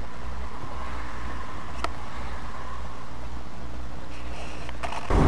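Ford Escort station wagon's engine and cabin rumbling steadily at low speed, heard from inside the car, with a faint click about two seconds in. Near the end the sound jumps abruptly louder.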